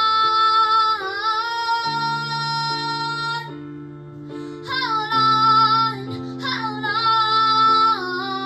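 Song with female vocals holding long sung notes over guitar and keyboard accompaniment; the voice drops out briefly about midway, then comes back in.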